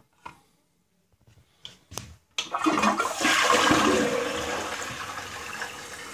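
A few light clicks at the flush valve, then about two and a half seconds in an old toilet fitted with a dual-flush conversion valve flushes. The water rushes into the bowl and swirls, loudest just after the start, then eases off. This is a test flush after readjusting the valve's quick-flush setting.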